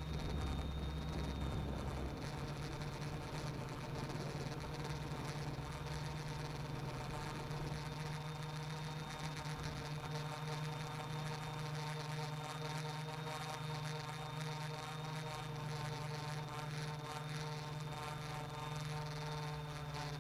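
Quadcopter's electric motors and propellers humming steadily, heard from a camera mounted on the airframe, with a faint high-pitched whine above the hum.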